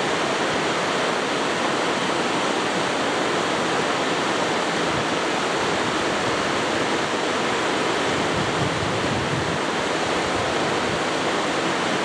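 Waterfall pouring over rock into a plunge pool: a steady, even rush of falling water.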